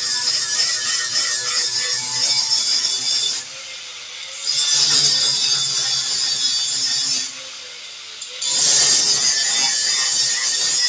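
Electric angle grinder grinding steel, throwing sparks, with a steady high hiss. Twice the grinding drops away for about a second, about three and a half and seven seconds in, leaving the lighter whine of the grinder motor.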